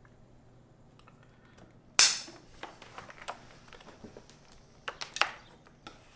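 A sharp snap about two seconds in, then scattered lighter clicks and taps: vinyl interior trim strip being cut to length and handled.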